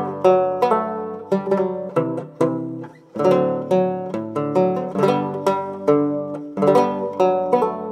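Background music: a plucked string instrument playing a tune, notes struck about twice a second and ringing away over sustained low notes.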